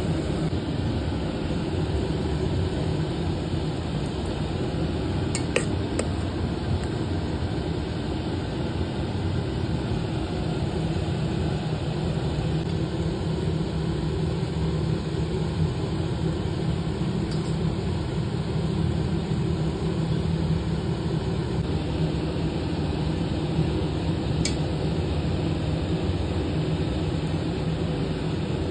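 A steady low rumble with a few sharp metal clinks of a utensil against a cooking pot, twice around six seconds in and once more near the end.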